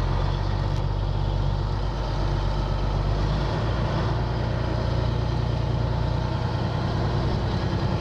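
Peterbilt 379's diesel engine running steadily at low revs, heard from inside the cab; its deepest note shifts about three and a half seconds in.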